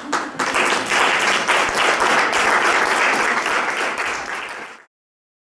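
Audience applauding: dense, loud clapping from many hands that stops abruptly near the end.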